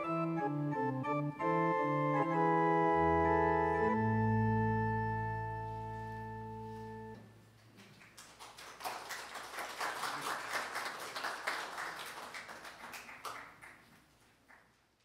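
Electronic organ playing the closing bars of a piece. It ends on a long held low chord that cuts off about seven seconds in. The congregation then applauds for several seconds, and the clapping thins out near the end.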